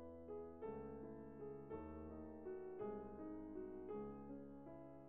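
Quiet background music played on a keyboard instrument, with a new chord sounding about once a second.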